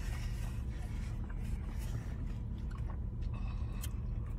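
People chewing and sipping food and drink, faint small mouth noises, over a steady low hum in a car's cabin.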